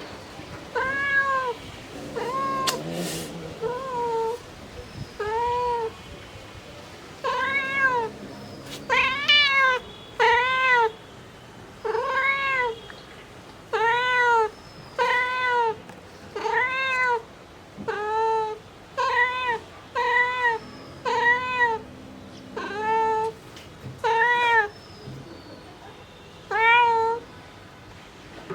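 Mother cat meowing over and over, calling for her kittens: about twenty short arched meows, each rising then falling in pitch, coming roughly one a second with a few brief pauses.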